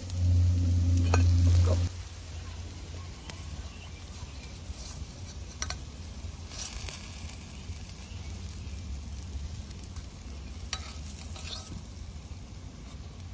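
Rib-eye steak frying and sizzling in a pan, with occasional short clicks and scrapes of a utensil. A loud low hum runs through the first two seconds, then stops.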